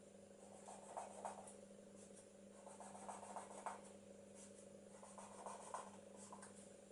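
Marker pen scratching faintly on a whiteboard in several short groups of quick zigzag strokes.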